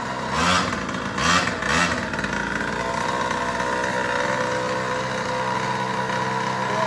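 Small two-stroke pocket bike engine running, revved in three short blips in the first two seconds, then running on at a steady pitch.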